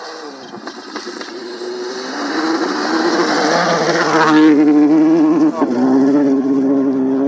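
Citroën DS3 rally car at full throttle on a gravel stage: its engine grows louder as it approaches, passes close by about four seconds in with a rush of tyres on loose gravel, then carries on hard away with a brief break in the engine note near the end as it shifts gear.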